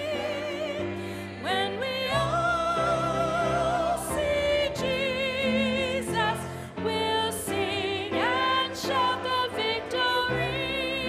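A woman singing a slow sacred song into a microphone, her sustained notes carrying a wide vibrato, over instrumental accompaniment of held low notes.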